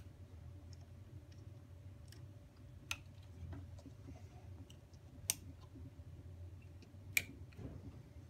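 Wire connectors being pushed onto the terminals of sealed lead-acid batteries in a plastic battery case: four sharp clicks a couple of seconds apart, with quieter handling sounds between them, over a low steady hum.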